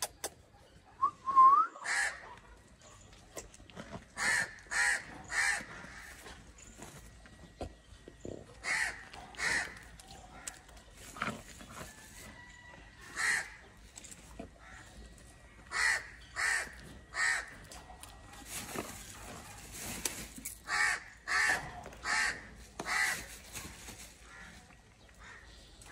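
Crows cawing: short caws in groups of two to four, the groups coming every few seconds. A brief rising whistle-like bird note sounds about a second in.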